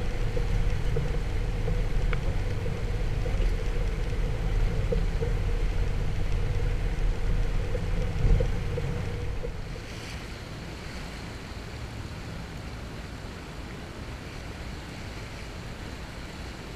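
Small motorboat running under way: a steady engine hum over low wind rumble and rushing water. About ten seconds in it drops to a quieter hiss of water and wind.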